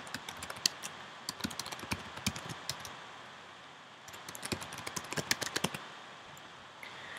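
Typing on a computer keyboard: a quick run of key clicks for about three seconds, a pause of about a second, then a second run of keystrokes, as an email address and then a password are entered.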